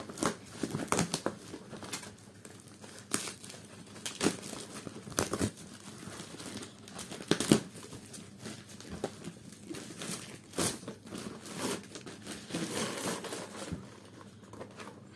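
Clear plastic bag crinkling and rustling in irregular bursts while being pulled off a plastic toy airplane, dying down near the end.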